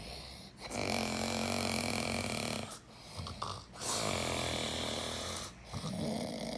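A sleeping person snoring: two long snores of about two seconds each with short pauses between, and a third beginning near the end.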